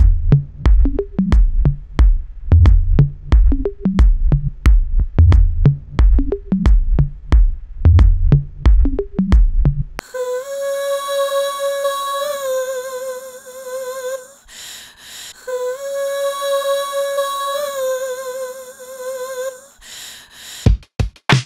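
Background electronic music. A drum-machine beat with a bass line for about the first half, then two long held melody notes that waver in pitch with no beat under them, and the beat starting again near the end.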